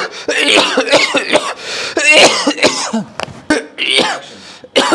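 A man coughing over and over, with throat clearing in between.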